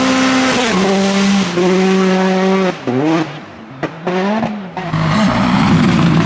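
Rally car engine at high revs, its pitch stepping down twice as it changes gear. About three seconds in it lifts off the throttle with quick rising blips and a couple of sharp cracks, then comes back loud and rough as the car drives past.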